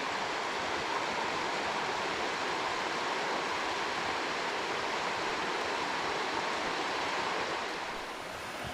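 Creek water rushing steadily, easing slightly near the end.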